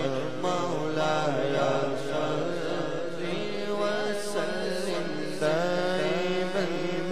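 Male vocalist singing a naat, an Islamic devotional song, into a microphone in long gliding melodic phrases over a steady low drone.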